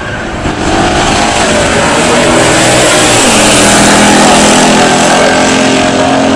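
Two V8 muscle cars launching side by side at full throttle down a drag strip, their exhausts growing louder, with one engine's pitch dropping about three seconds in.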